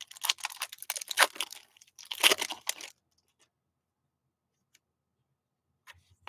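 Foil wrapper of a trading-card pack crinkling and tearing as it is handled, in two bursts over the first three seconds, then near silence.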